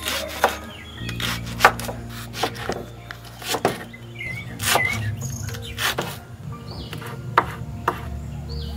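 A large kitchen knife slicing leeks on a wooden cutting board: about a dozen irregular sharp knocks of the blade hitting the board. Background music plays throughout, with a few birds chirping.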